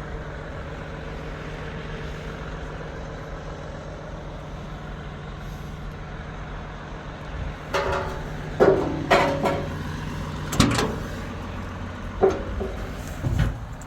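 Cat 395 excavator's diesel engine idling steadily, then a run of loud metal clunks and knocks, about five, from about halfway through to near the end.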